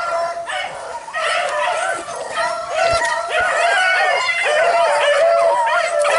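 A pack of rabbit hounds baying and yelping in full cry, several voices overlapping without a break, as they run a jumped rabbit. The cries thicken and grow louder after about the first second.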